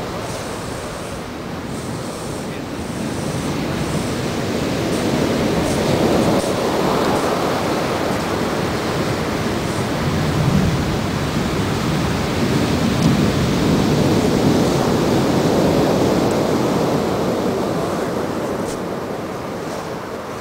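Pacific surf breaking and washing up a steep beach: a continuous rushing of water that swells louder through the middle and eases near the end.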